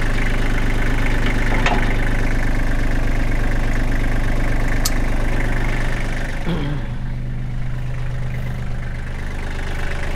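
Kubota L2800 compact tractor's three-cylinder diesel engine idling steadily, with a couple of sharp clicks.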